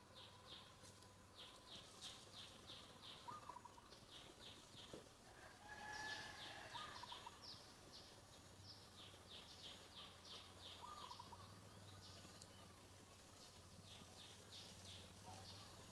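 Faint outdoor ambience: birds calling in repeated runs of quick, high chirps, about four a second, with a few short whistles in between.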